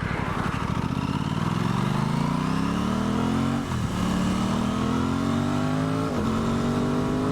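Aprilia Tuono 660's parallel-twin engine accelerating hard through the gears: the revs climb steadily, drop sharply at an upshift about four seconds in, climb again and drop at a second upshift about two seconds later.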